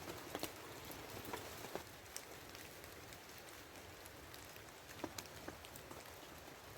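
Light rain falling: a soft steady hiss with scattered single drops landing.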